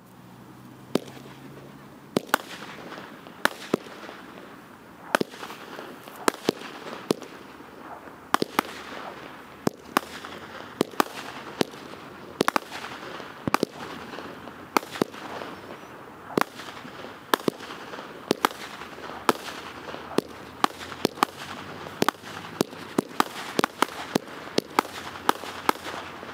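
Medusa aerial repeater firework firing shot after shot: sharp bangs about once a second, coming faster and closer together near the end, over a steady hiss and crackle.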